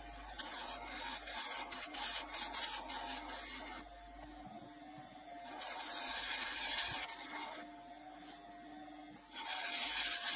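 Small metal lathe cutting a tiny metal part. The spindle runs with a steady hum, and the tool hisses and scrapes in three bursts of cutting: a long one at the start, one in the middle and one near the end.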